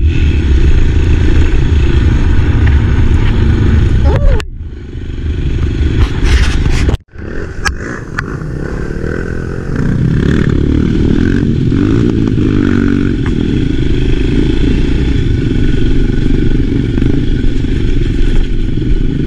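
Enduro dirt bike riding off-road, engine running steadily. The sound dips sharply about four seconds in and cuts out briefly near seven seconds, then runs on steadily.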